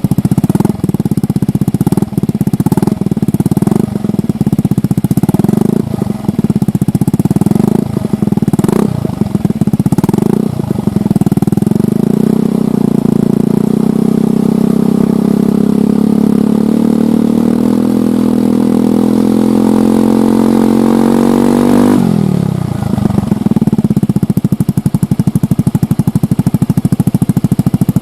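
Yamaha Majesty 125 scooter's single-cylinder engine running through a Yoshimura Cyclone aftermarket exhaust. Short throttle blips come about once a second for the first ten seconds or so. Then a long rev climbs steadily in pitch and is cut off suddenly about 22 seconds in, dropping back to idle.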